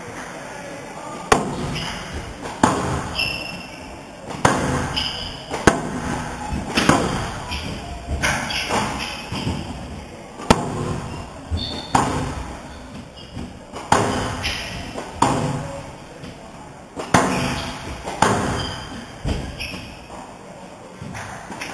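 Squash rally: the ball cracking off rackets and court walls about once a second, each hit ringing out in the hall, with shoes squeaking on the wooden court floor between shots.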